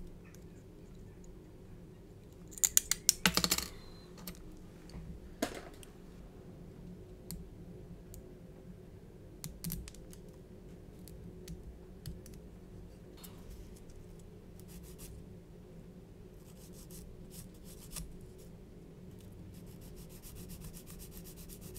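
Small hand cutters snipping the thin 3D-printed resin casting columns off a scale-model undercarriage leg. A quick run of sharp snaps comes about three seconds in and another snap a couple of seconds later, then fainter light clicks.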